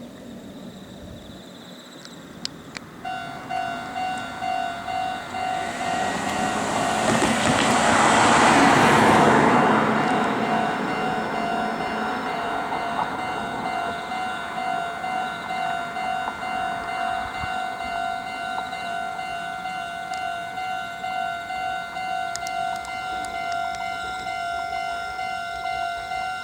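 Japanese level-crossing warning bell starting about three seconds in and ringing with a steady, regularly pulsing electronic tone. A swell of noise passes through and is loudest around nine seconds in.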